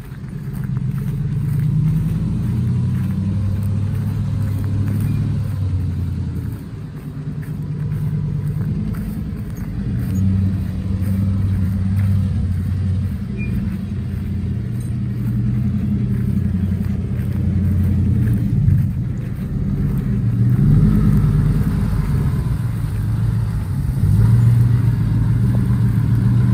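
Pickup truck engine working under load as it tows a loaded gooseneck trailer, pulling on its front wheels only. The engine note rises and falls in steps as it works through the manual gearbox.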